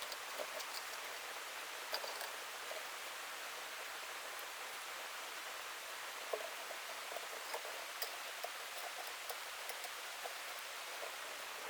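Running water: a steady watery hiss with scattered small plinks and splashes.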